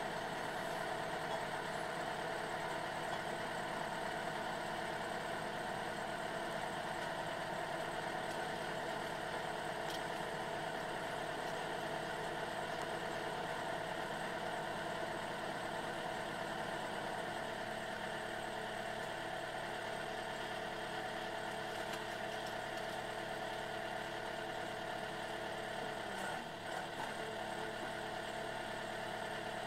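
Engine powering a Bobcat hydraulic wood splitter, running steadily at an even speed.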